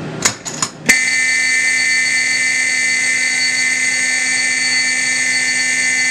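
A few sharp clicks, then about a second in a 4051 mechanical fire alarm horn sounds continuously, a loud, steady buzz of several fixed tones, cutting off suddenly near the end as the panel is silenced.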